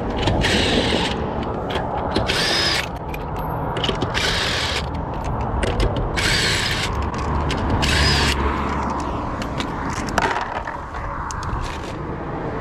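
Cordless impact wrench working the wheel's lug nuts in about six short bursts, each lasting about half a second.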